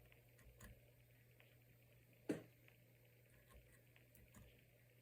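Near silence with a steady low hum, a few faint ticks, and one sharp tap a little over two seconds in.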